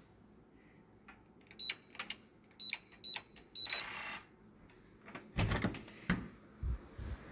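About four short high electronic beeps, each with a click, as buttons are pressed on a keypad, then a brief rush of air. A few seconds in come several heavy knocks and thumps of a door latch and door.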